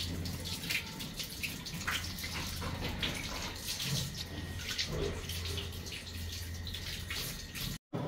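Mika SpaCare Steam Wash front-loading washing machine starting its wash: water running in and splashing around the clothes in the drum, over a steady low hum. The sound cuts out briefly just before the end.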